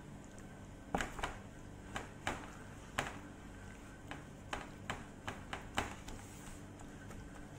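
Irregular wet slaps and taps as gloved hands work oil into raw split chickens in a metal baking tray, about a dozen of them spread over several seconds, over a steady low hum.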